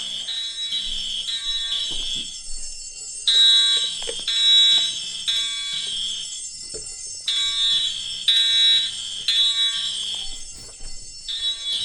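Fire alarm sounding in a repeating pattern: three shrill beeps, then a short pause, the group starting again about every four seconds, the temporal-three evacuation signal. A few faint knocks sound under it.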